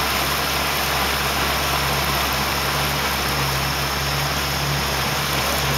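A motorboat's engine running steadily, a low even drone under a constant hiss.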